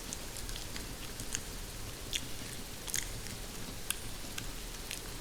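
Wet chewing and biting mouth sounds on a lock of hair, a few sharp clicks among them, over a steady recording of rain falling on a greenhouse roof.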